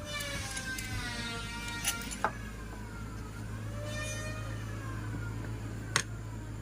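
An engine revving up and down in slow swells, with a few sharp metallic clicks, like tools knocking on metal, about two seconds in and again near six seconds.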